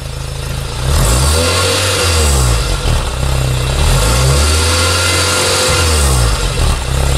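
Exhaust note of a Renault Sandero's 1.2-litre 16-valve four-cylinder engine (D4F 732) heard at the tailpipe: idling, then revved up and back down several times from about a second in, during an exhaust check.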